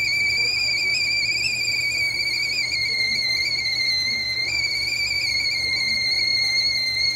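Stovetop whistling kettle at the boil, its spout whistle sounding one steady high-pitched tone that wavers slightly, with a small step in pitch about halfway through.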